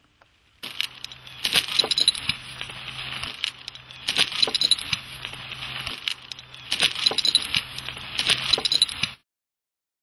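Metal clinking and jangling on a Case bulldozer's steel, most likely the hanging chain knocked against the blade, struck in rhythmic pairs about every two and a half seconds over a faint low hum. It stops abruptly near the end.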